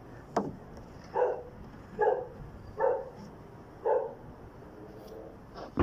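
A dog barking four times in a steady rhythm, about one bark a second, with a single sharp click shortly before the barking starts.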